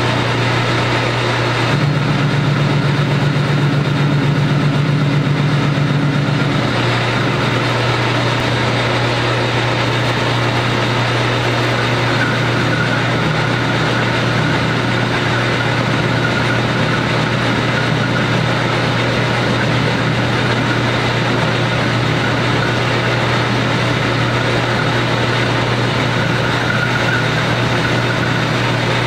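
Metal lathe running with a steady motor hum while a carbide-insert turning tool cuts a nut down to size. A second, deeper tone sounds for a few seconds near the start, and a faint higher whine comes and goes later.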